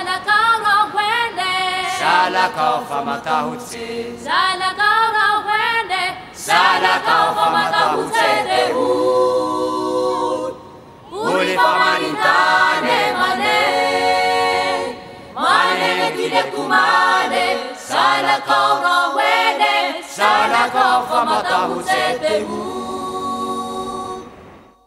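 A cappella vocal group singing, several voices in harmony, in phrases separated by short pauses; the singing stops just before the end.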